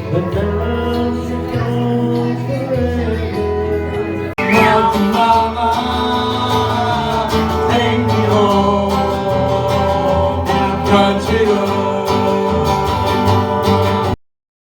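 Background music in a country style, led by guitar, with a brief break about four seconds in and a moment of silence near the end.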